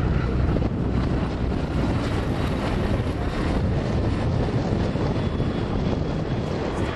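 Bell/Agusta AB-609 tiltrotor's twin turboshaft engines and proprotors running steadily in flight, mixed with wind rumbling on the microphone.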